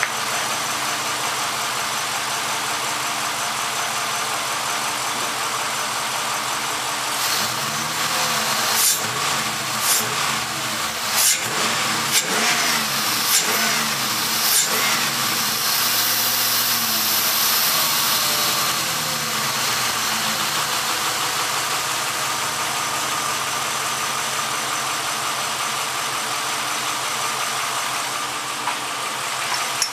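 1999 Jeep Grand Cherokee WJ's 4.7-litre V8 idling on its newly fitted Bosch 12-hole fuel injectors. The throttle is blipped by hand several times about a third of the way in, the revs rising and falling, and then it settles back to a steady idle.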